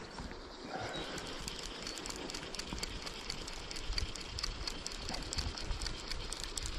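Wind rumbling on the microphone, with a fast, irregular crackle of rustling throughout.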